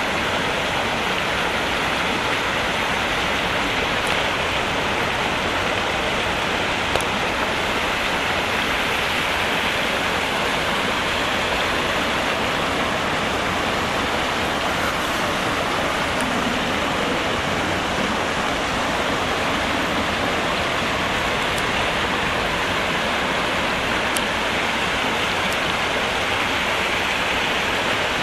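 Steady rush of muddy landslide runoff flowing down a paved road: a constant, even hiss of moving water.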